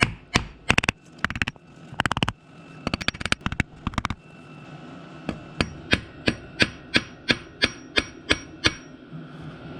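Hammer blows on a block of wood used as a makeshift driver, pressing a thin metal repair sleeve onto a Subaru crankshaft's grooved rear main seal surface. Irregular heavy strikes at first, then a run of lighter, even taps about three a second.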